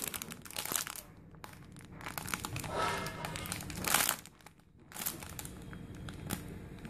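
Clear plastic packaging bag crinkling in several short bursts as a sponge cake-roll squishy is squeezed through it by hand.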